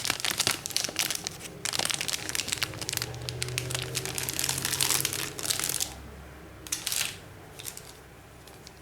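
Motherboard packaging crinkling and rustling as it is handled. It goes on busily for about six seconds, stops, and comes back in one short burst about a second later.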